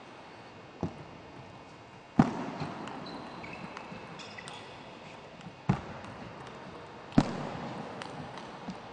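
Table tennis ball being struck by the bats and bouncing on the table: a handful of sharp, separate clicks, each with a short echo.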